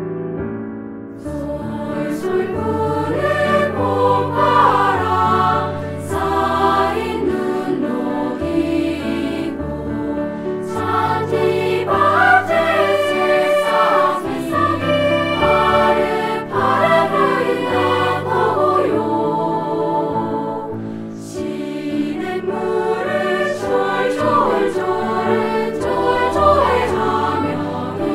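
Children's choir singing a Korean spring children's song, with piano accompaniment; the voices come in about a second in.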